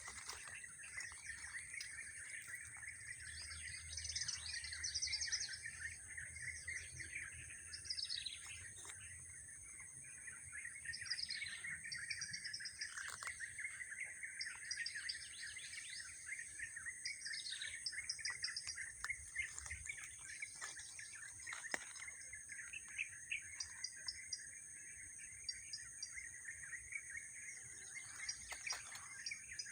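Several wild birds chirping and calling, a stream of short downward-sweeping notes, over a steady high-pitched buzz.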